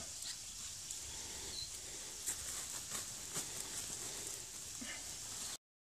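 Faint rustling and pattering of coarse composted cattle manure and straw, scooped by hand from a sack. The sound cuts off suddenly near the end.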